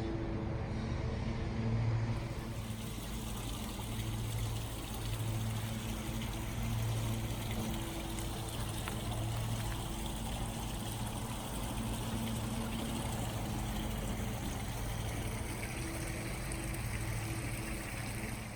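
Water trickling steadily over a low, wavering hum.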